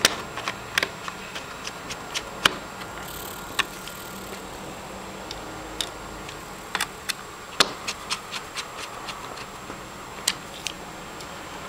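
Small screwdriver driving screws into the plastic base of an Eee PC netbook: scattered, irregular light clicks and ticks, a few sharper than the rest.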